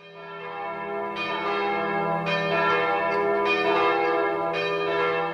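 Bells ringing, with a fresh stroke about every second over a long, overlapping ring.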